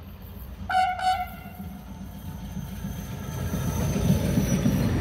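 Rail maintenance vehicle with a loading crane gives two short toots of its horn about a second in. Then its engine and wheels grow louder as it comes up and passes close by, with a thin high-pitched squeal over the top.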